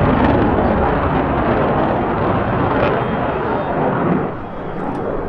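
Jet engine noise from an F-16 Fighting Falcon flying a display pass: a loud, steady roar that peaks near the start and eases briefly about four seconds in.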